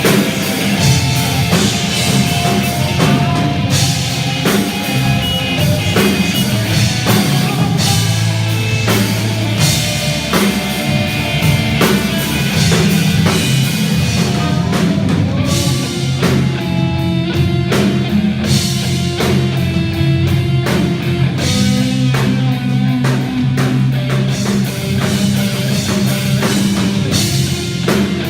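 Rock band playing loud heavy rock: electric guitars over a drum kit keeping a steady beat.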